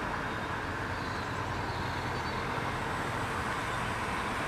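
Steady outdoor background noise at a railway level crossing, an even hum and hiss like distant road traffic, with no distinct event standing out.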